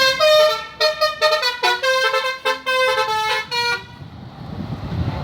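Bus telolet horn (Basuri multi-tone air horn) playing a quick tune of short stepped notes, which stops about four seconds in. A low rumble follows.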